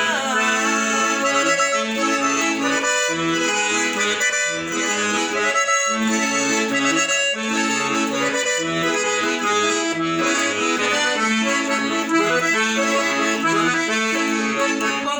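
Instrumental break of a Brazilian sertanejo song, led by accordion over a rhythmic bass accompaniment.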